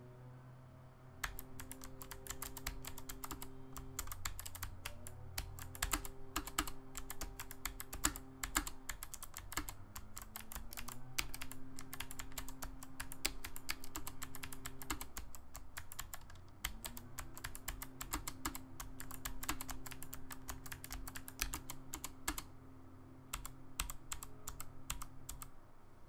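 Typing on a HAVIT HV-KB395L low-profile mechanical keyboard with Kailh PG1350 blue clicky switches: a fast, continuous run of key clicks that starts about a second in and thins to scattered keystrokes near the end.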